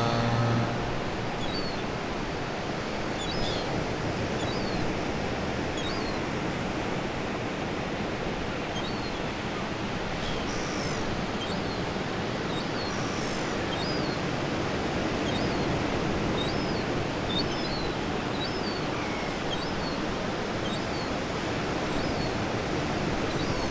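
Ocean surf washing steadily, with seagulls calling in short cries scattered throughout.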